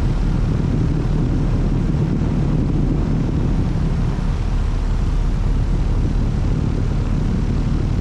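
Day & Night heat pump outdoor unit running in cool mode: the condenser fan and compressor running, a steady, deep rush of air up through the top grille.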